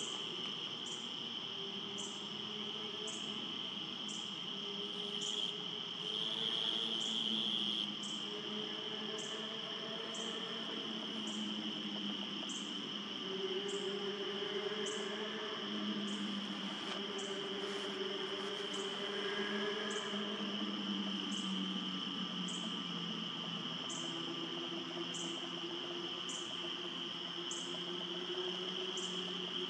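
Evening insect chorus: a steady high trill with a sharper chirp about once a second, over a low wavering hum.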